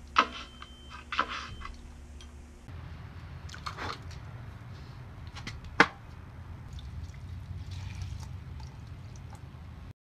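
Dog stepping on a wooden doorbell foot pedal: two sharp knocks about a second apart, with a faint high steady tone between them. Later a sneaker stomps down on a burning paper sign with one sharp thud, over a steady low hum.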